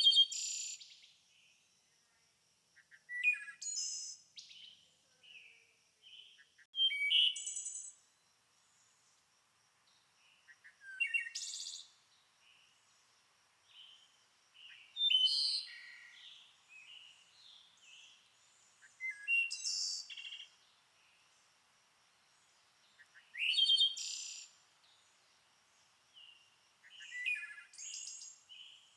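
A songbird singing a short, high-pitched phrase about every four seconds. Each phrase opens with a quick rising sweep into a burst of notes and trails off in softer chirps.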